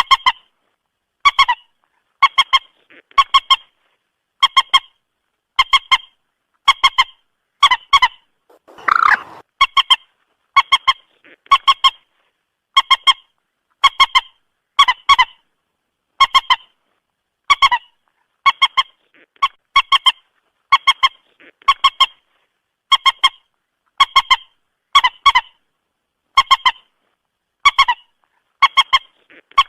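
Moorhen calling over and over: a short, harsh double note about every second and a third, with one longer, lower call about nine seconds in.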